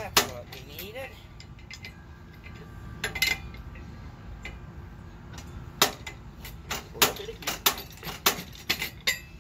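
Sharp metal clinks and clanks as a seized Allis-Chalmers tiller mule drive is wiggled and worked by hand to free it from its shaft. A couple of clinks come about 3 s in, then a quick irregular run of them from about 6 s on.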